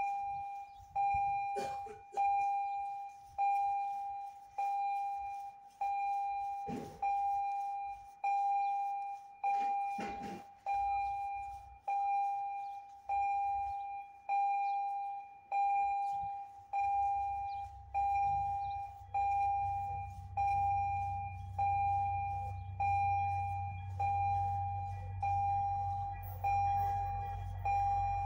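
A railroad warning bell ringing a steady single ding about once every second and a bit, each stroke fading before the next. From about two-thirds of the way through, a low rumble from the approaching train builds underneath.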